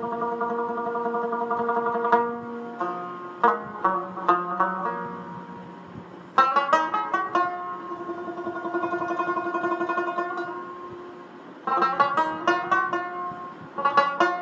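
Instrumental background music on a plucked string instrument: quick runs of notes alternate with longer held notes.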